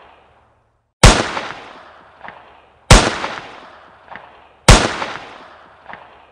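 Three loud gunshots about two seconds apart, each followed by a long rolling echo and a fainter sharp return echo about a second later.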